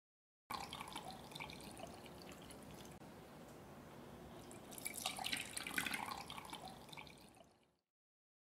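Liquid being poured into a pot: first heavy cream from a glass bowl, then, after a short break, milk from a measuring cup, splashing and dripping. The pouring is loudest from about five to six and a half seconds in, then tails off and stops just before the end.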